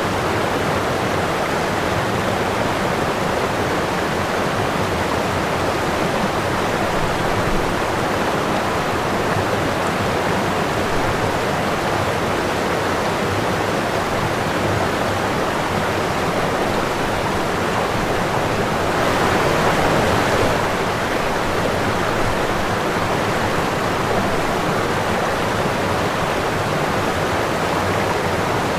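Running water: a steady, even rush that swells briefly about two-thirds of the way through.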